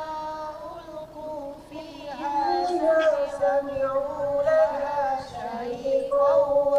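A man reciting the Qur'an in a melodic chant, drawing out long ornamented notes on each phrase.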